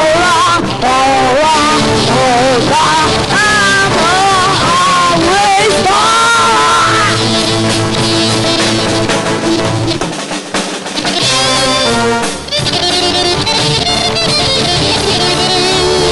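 Live rock band of electric guitar, bass, keyboard and drum kit playing an instrumental passage, with a lead line of bent, wavering notes over the band for the first several seconds. The low end drops out for about a second past the middle, then the full band comes back in with fast, busy playing.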